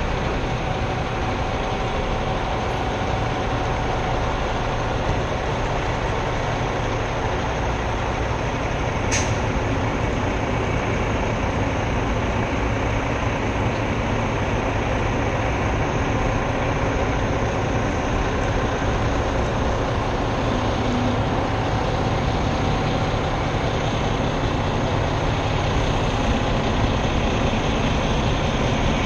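Freightliner Cascadia semi truck pulling a trailer slowly, its diesel engine running with steady road and wind noise on a microphone mounted outside the cab. One brief sharp hiss or click about nine seconds in.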